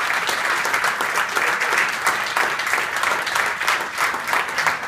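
Wedding guests applauding: many hands clapping together, dense and unbroken.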